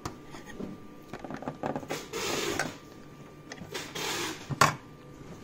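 Small plastic clicks and scraping as a pluggable screw-terminal connector is worked loose from the X-motor socket of an OpenBuilds BlackBox CNC controller, with one sharp click near the end.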